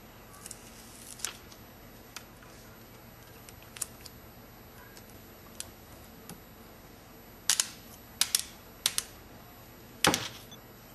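Handling noises from a vinyl skin and an iPod Touch: scattered light clicks and crinkles, then a run of sharper clicks about two-thirds through and a louder knock near the end.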